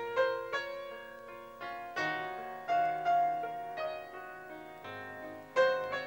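Slow piano background music: single struck notes that ring and fade, over low held bass notes.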